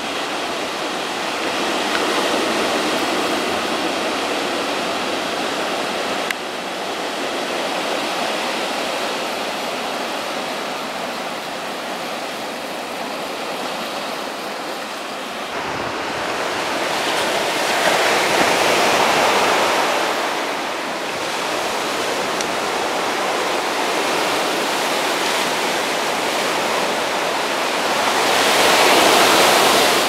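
Ocean surf breaking on a beach: a steady rushing wash that swells twice, once about two-thirds of the way in and again near the end, as waves break.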